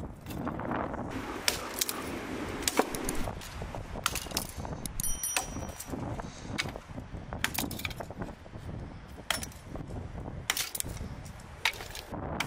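Hatchet chopping firewood on a wooden stump: a string of sharp, irregular knocks as the blade bites into and splits the sticks.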